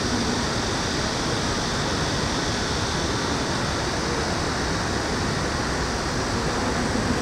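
Steady city ambience: an even, unbroken wash of background noise with no distinct events, typical of distant traffic and the general hum of an urban plaza.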